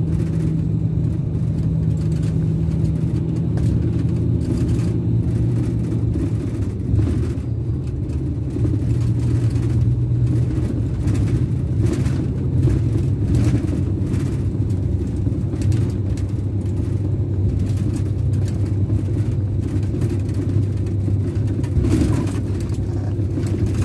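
Scania K410 coach's rear-mounted Scania DC13 inline-six diesel, heard from the upper deck while the coach drives. It hums steadily, its pitch stepping down twice in the first seven seconds and moving up and down again around ten seconds before holding steady, with tyre and road noise underneath.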